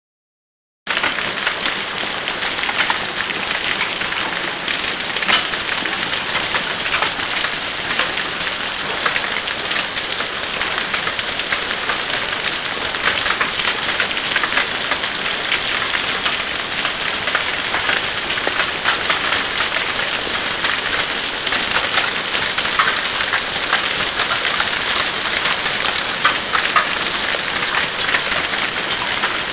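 Hail falling steadily: a dense hiss of countless small impacts, with sharper individual clicks scattered through it. It starts about a second in.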